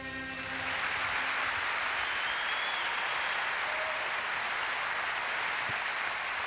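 Large audience applauding steadily. A held music chord fades out in the first second.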